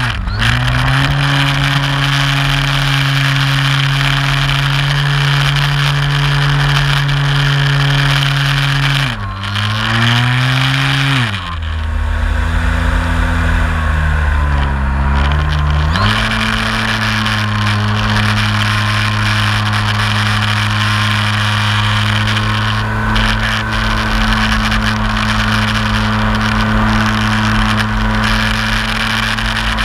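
Brushless electric motor and propeller of an RC MX2 aerobatic model plane, heard close up from a camera mounted on the plane, running with a steady buzzing tone. About a third of the way through it drops in pitch and wavers for several seconds, then climbs back to its earlier steady pitch.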